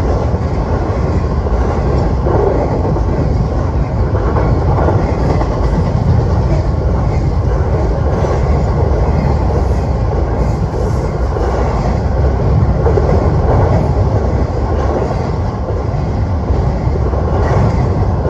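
Norfolk Southern freight train rolling past, a loud, steady rumble of wheels on rail.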